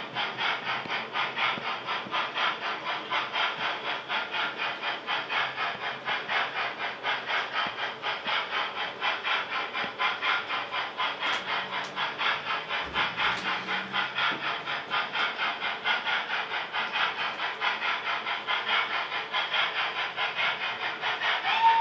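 Sound-fitted model LNER B1 steam locomotive chuffing steadily, about two to three chuffs a second. A single steady whistle sounds right at the end.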